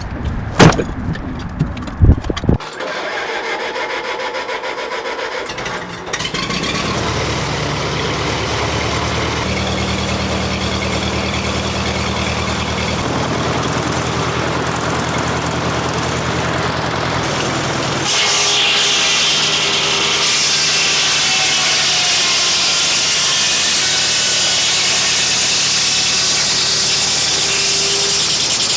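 Vintage Frick sawmill at work, with two sharp knocks near the start. Its engine then runs steadily, and from about two-thirds through a louder high hiss sets in as the circular saw blade cuts through a red oak log.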